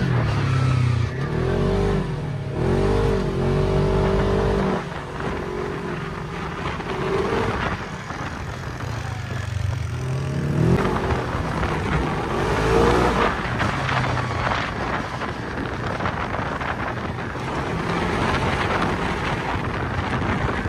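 Engine of a side-by-side dune buggy driving over sand dunes, its pitch rising and falling several times with the throttle over a steady low rumble.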